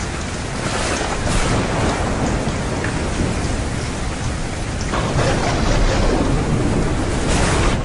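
Steady heavy rain with thunder rumbling, swelling about a second in and again, deeper and louder, from about five seconds.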